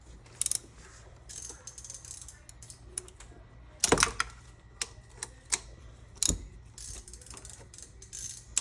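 Ratchet wrench clicking in short irregular spurts while a 10 mm bolt is backed out of an ignition coil, with a couple of louder metallic knocks about four and six seconds in.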